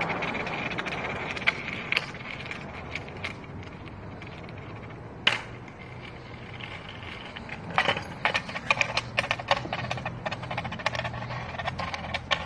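Skateboard rolling over concrete: a steady rolling noise with scattered clicks and rattles, which come more often in the second half.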